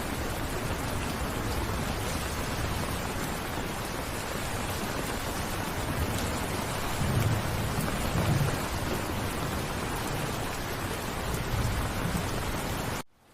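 Steady heavy rainfall with low rolls of thunder swelling about seven seconds in and again near the end; the sound cuts off suddenly just before the end.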